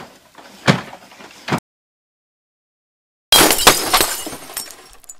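Two sharp knocks, then, after a dead gap, a sudden loud crash with clinking and rattling that dies away over about two seconds, like something breaking.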